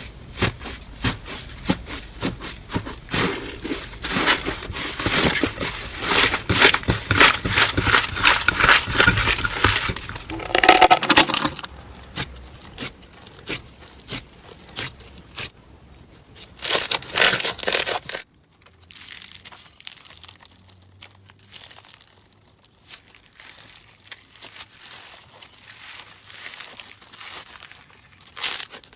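Slime being squeezed and pulled by hand, giving dense crackling, popping clicks. The crackle is loud for the first eleven seconds or so, comes back in a short burst later, then turns quieter and sparser.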